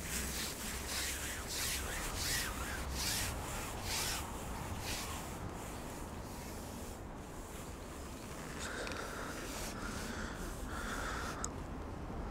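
Hands working the bait and tackle: a run of short rubbing, scraping strokes, roughly one or two a second, for the first few seconds, then softer handling noise.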